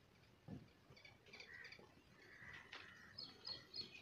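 Faint outdoor birdsong: scattered chirps and whistles, then from about three seconds in a quick series of short repeated chirps, about three a second.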